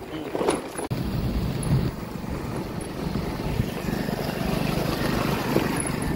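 Scooter being ridden along a road: engine and road noise with a rough low rumble, steady apart from a brief dip about a second in.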